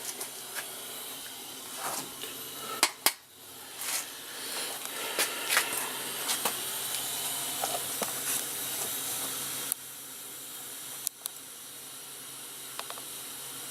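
Steady hiss with a few scattered sharp clicks and knocks from parts being handled at a workbench.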